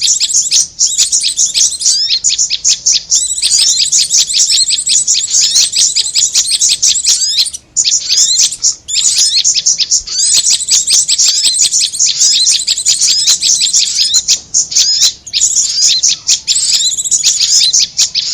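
Bird-lure recording of small songbirds, korlap and prenjak, calling: a dense stream of rapid, high-pitched chirps and twitters, broken by a short pause about eight seconds in.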